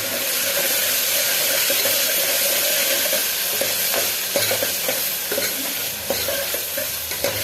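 Chopped tomatoes sizzling in hot oil with mustard seeds and onions in the base of a pressure cooker, a steady frying hiss that eases slightly toward the end. A few short clicks of a spoon as the pan is stirred.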